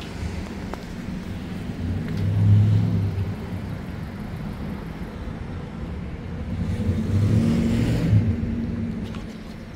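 Road traffic: cars driving past with a low engine rumble and tyre noise, swelling about two and a half seconds in and again around seven to eight seconds.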